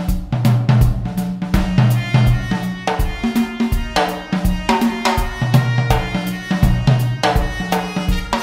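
Instrumental music: a drum kit keeping a steady beat under a bass line and held chords.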